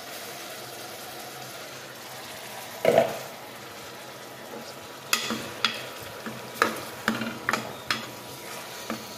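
Chopped tomatoes and fried onions sizzling in hot oil in a pressure cooker, with a metal spoon stirring and clicking against the pot through the second half. One louder clunk about three seconds in.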